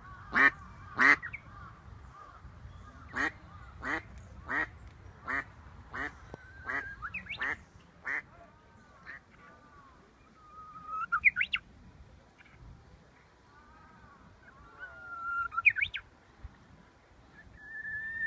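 Japanese bush warbler (uguisu) calling from dense shrubbery. It gives a series of sharp repeated notes, about one and a half a second, which fade over the first eight seconds. Then come three 'hō-hokekyo' songs, each a held whistle ending in a quick flourish: one after about ten seconds, one around fifteen seconds and one at the very end.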